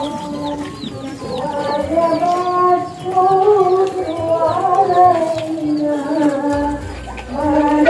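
Music: a single melodic line of long held notes that slide slowly in pitch, with short high chirps of birds above it.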